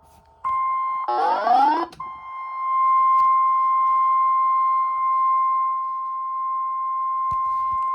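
NOAA Weather Radio warning alarm tone: a single steady, shrill tone of about a thousand hertz that comes on about half a second in, is broken about a second in by a short burst of rising warbling chirps, and then holds steady. On weather radio this tone is the alert for a new warning, here a tornado warning.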